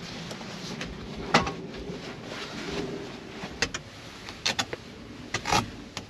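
A few sharp knocks and clicks over a low, steady background, the loudest about a second and a half in and a quick cluster of them later on.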